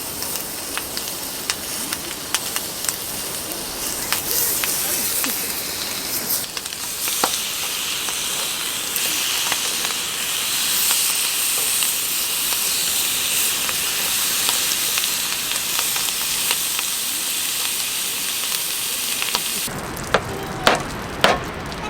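Food frying in a pan: a steady sizzle with small pops and crackles. The sizzle gets louder about seven seconds in and cuts off suddenly near the end.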